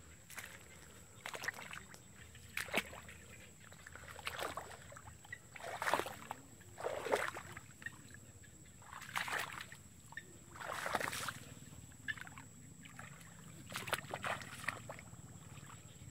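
Bare feet wading through ankle-deep water and mud, each step a splash, about one every one to two seconds. A steady high-pitched whine runs underneath.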